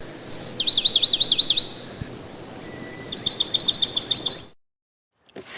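A bird singing: one high whistle, then a quick run of about six down-slurred notes, a short pause, and a faster series of about ten short clipped notes. The sound cuts off abruptly near the end.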